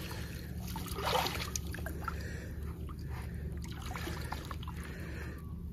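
Shallow muddy water trickling and sloshing, with a few small splashes and clicks, as bare hands work in a flooded eel burrow.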